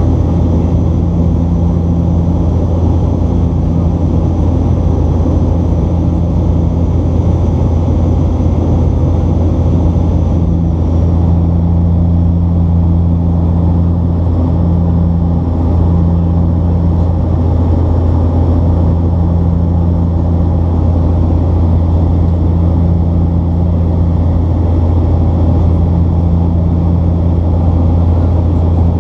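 Cabin noise beside the six-bladed propeller of a Bombardier Dash 8 Q400 turboprop during descent: a loud, steady low drone with a deep hum. A second tone just above the hum swells and fades every few seconds.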